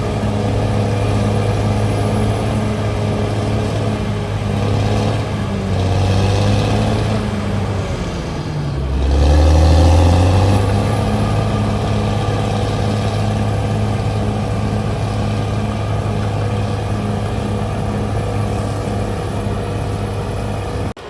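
Caterpillar D6R XL bulldozer's diesel engine running steadily while working. About nine seconds in, its pitch sags and the sound swells to its loudest, then it settles back to the steady note.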